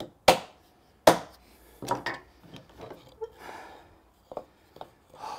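Turned wooden mallet striking a scrap block to knock a hand-cut dovetail joint home: two sharp wooden knocks within the first second or so, then several lighter knocks and clicks.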